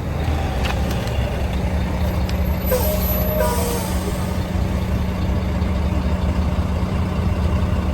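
Semi-truck diesel engine running steadily. About two and a half seconds in there is a short hiss of air from the air brakes, with a few brief squeaky tones.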